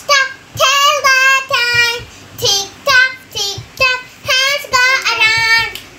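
A young girl singing unaccompanied in short phrases, with held, pitched syllables.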